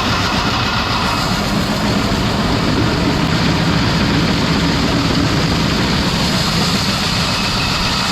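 Grain-handling augers and bucket elevator leg running steadily under power, with a continuous low mechanical hum and rush. The system is running again after the plug was cleared and the broken shear bolt between the augers replaced.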